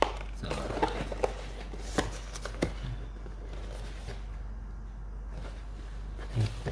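Cardboard shoebox and a paper size label being handled: a string of small clicks, taps and rustles for the first few seconds, then a steady low hum with little else.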